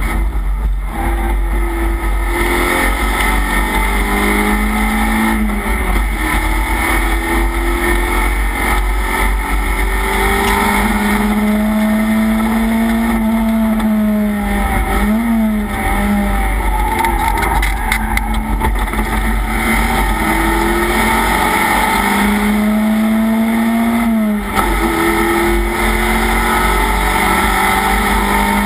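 Race car engine heard from inside its stripped, roll-caged cabin at racing speed, its note climbing in long sweeps under acceleration and dropping sharply when the driver lifts, about halfway through and again later, over steady wind and road noise.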